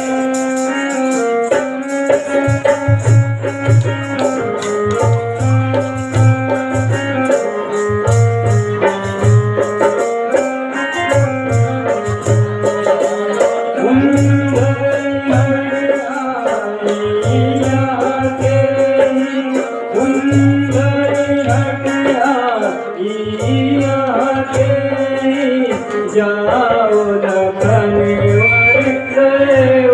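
Music with a melody moving in short steps over a pulsing bass beat, and a fast, steady rattle or shaker rhythm.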